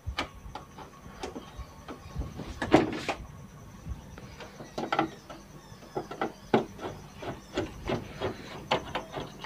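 Hands working the plastic back cabinet of a CRT television loose while opening it: irregular clicks, knocks and plastic rubbing, with a louder knock about three seconds in.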